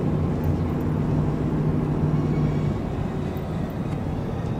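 Car engine and road noise heard from inside the cabin while driving, a steady low hum that fades back about three seconds in as the overall level eases slightly.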